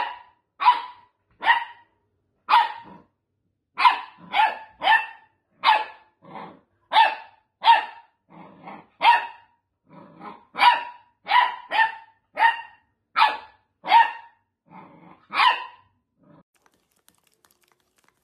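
Dachshund puppy barking repeatedly, about one short, sharp bark a second, with a few softer low grumbles between, at its own reflection in a mirror. The barking stops near the end.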